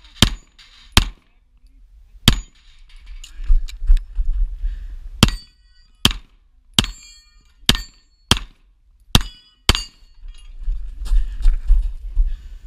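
A string of pistol shots fired at steel targets, about one every half second to second with a short pause a few seconds in. Several shots are followed by the brief ring of the bullet hitting steel. A low rumble sits under the shots in places.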